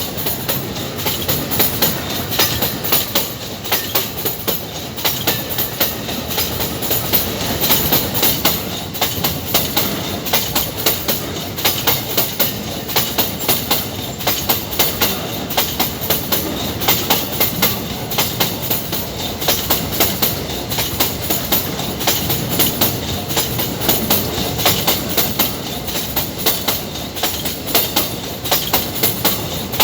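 Empty iron-ore wagons rolling past, their wheels clacking over rail joints in a steady repeating rhythm of knocks over a continuous rumble and rattle.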